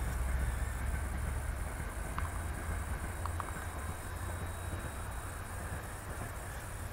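Wind on the microphone: a steady low rumble that eases a little after a few seconds.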